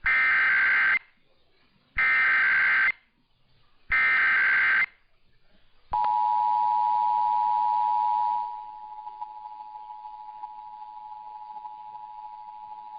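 Emergency Alert System SAME header: three one-second bursts of warbling digital data tones, two seconds apart. About six seconds in, the EAS two-tone attention signal (853 and 960 Hz together) starts. It sounds loud for a couple of seconds, then carries on much quieter.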